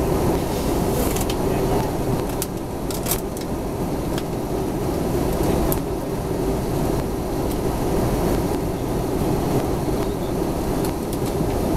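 Steady cabin noise of an Airbus A320-214 in descent, heard from a window seat over the wing: the low rush of its CFM56 turbofan engines and the airflow over the fuselage, with a few faint light ticks in the first few seconds.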